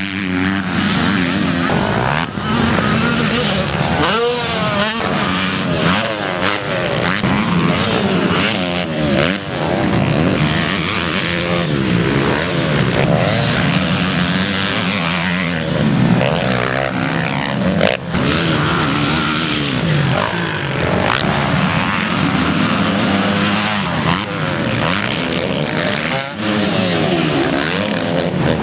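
Several motocross bikes running on a dirt track, their engines revving up and dropping back again and again as the riders accelerate and back off, with the sound of more than one bike overlapping.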